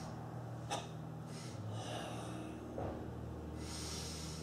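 Forceful, hissing breaths of Goh Cho Kun Sam Chien (Sanchin) kung fu breathing through the nose and mouth: a short sharp breath just under a second in, then two longer breaths, over a steady low hum.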